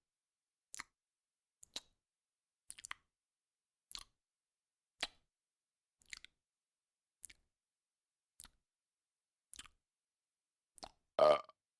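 Cartoon chewing sound effect: about ten short chomps, roughly one a second, then a longer, louder sound near the end.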